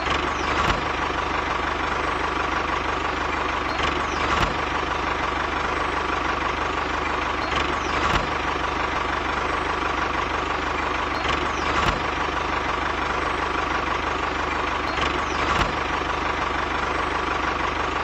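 Steady engine-like running sound for a toy mini tractor, with a faint whine and a light click about every four seconds.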